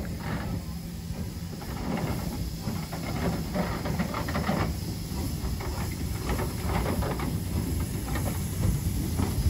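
Peckett 0-4-0 saddle tank steam locomotive moving slowly during shunting, with steam hissing over a low rumble and irregular knocks from its motion and coupled wagon.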